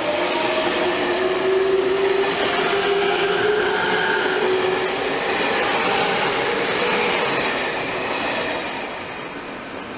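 JR Central 383 series electric train's Toshiba GTO-VVVF inverter and traction motors whining, heard on board over steady wheel-on-rail rolling noise; the whine climbs slowly in pitch as the train accelerates, and the sound fades down near the end.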